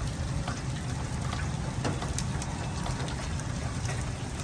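Steady rain with scattered sharp ticks of small hailstones striking, over a steady low rumble.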